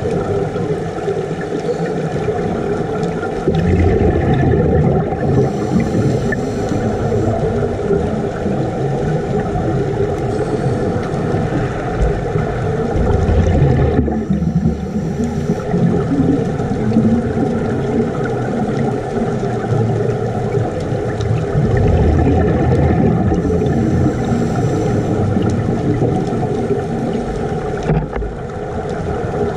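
Underwater sound of scuba divers breathing out through their regulators: bursts of bubbling every several seconds over a steady low drone in the water.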